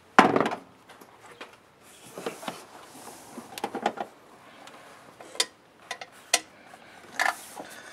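Handling noise from hands working in an engine bay: a loud knock and rustle at the start, then scattered rustling and a few sharp clicks.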